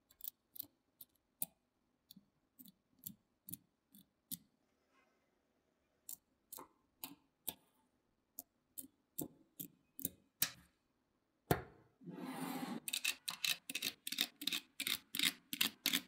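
Small magnetic balls clicking as they snap together and are pulled apart, in separate sharp clicks. About twelve seconds in there is a louder snap and a short rattle of many balls, then a quick run of clicks.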